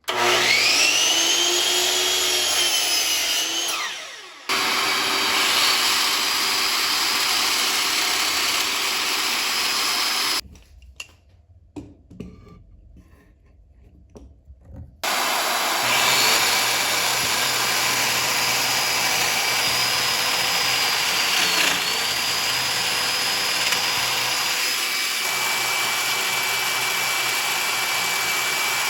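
Woodworking power tools running in short cut-together clips: one starts suddenly with a rising whine and winds down, then steady running, a quieter stretch of small knocks, and steady running again whose pitch dips briefly about two-thirds of the way in, as if under load.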